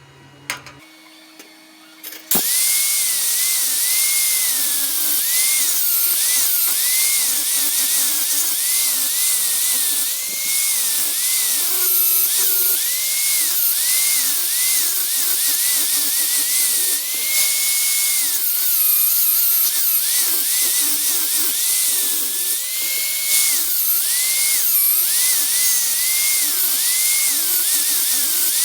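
Angle grinder starting up about two seconds in and grinding steel, its high whine dipping again and again as the disc bites into the metal; this is a weld seam on a square steel tube being ground flush.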